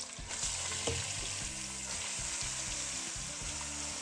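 Marinated goat meat and sliced onions sizzling in hot mustard oil in a pressure cooker as they are stirred, a steady frying hiss.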